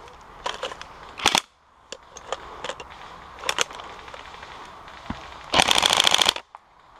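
Airsoft electric rifle firing a rapid full-auto burst of sharp clicking shots, lasting under a second, near the end. Two shorter clusters of sharp cracks come earlier, about a second in and again about three and a half seconds in.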